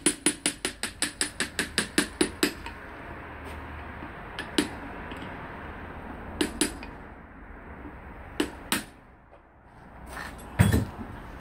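Hammer blows driving a steel chisel against the hub nut and bearing of a rusty drum-brake hub, metal ringing on metal. A quick run of about a dozen strikes, about five a second, comes first. Then a few single blows follow, spaced out, the loudest and heaviest near the end.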